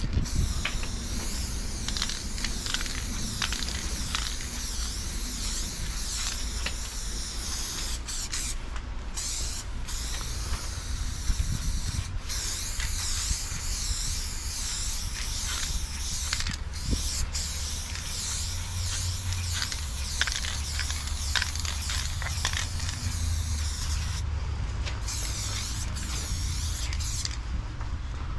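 Aerosol spray paint can hissing in long, continuous passes as paint is filled in, broken by a few brief pauses. The spraying stops about a second before the end.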